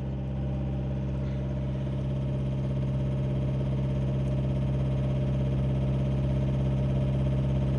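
Mitsubishi Triton diesel engine running steadily at idle with a harsh, noisy sound while a scan tool runs its fuel injection pump learning routine, after the pump's learned values were reset to zero. It grows slightly louder as it goes.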